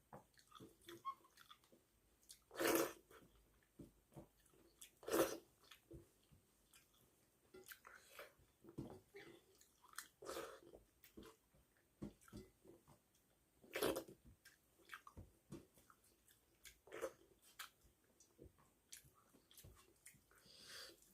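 A person chewing and eating rice with fish curry close to the microphone: irregular soft wet clicks and lip smacks, with a few louder mouth sounds spread through.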